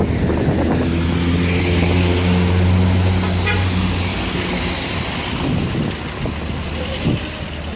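Road traffic passing close by: a motor vehicle's engine drones low and steady, then fades after about four seconds, over tyre and road noise.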